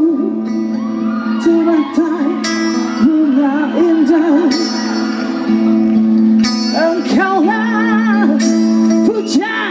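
Live band playing the slow instrumental intro to a song. A wavering, vibrato-laden melody line runs over a held low note, with occasional light cymbal strokes.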